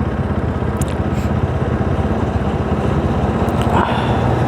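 Bajaj Pulsar NS200's single-cylinder engine running steadily at low revs, with no revving, heard from the bike itself.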